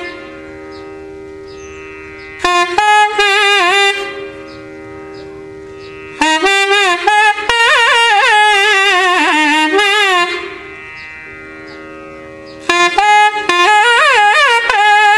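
Nagaswaram playing raga Nalinakanthi in three ornamented phrases with pauses between them, its notes sliding and wavering. A steady drone holds underneath and carries on through the pauses.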